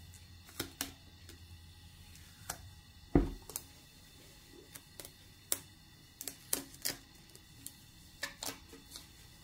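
Masking tape and film crackling and clicking in short, irregular bursts as they are peeled off a painted motorcycle fuel tank, with one dull thump about three seconds in.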